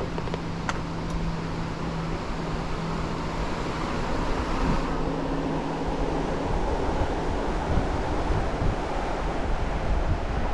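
Steady wind rushing over the microphone of a moving bicycle, with a faint steady low hum underneath. It grows a little louder about four seconds in.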